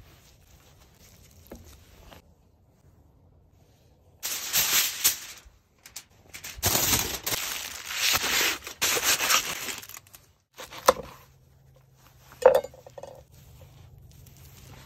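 Aluminium foil crinkling and rustling loudly as it is pulled open from around a wrapped baguette, in two long stretches. This is followed by a knife cutting through crusty toasted bread, with a couple of sharp knocks on the wooden board.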